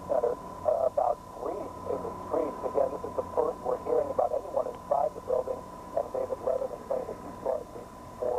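Unintelligible voice from a radio, distorted into a rapid string of short warbling syllables over a steady high whine and a low mains hum.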